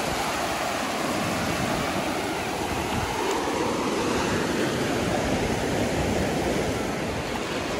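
Sea waves breaking and washing up a sandy shore: a steady rushing surf.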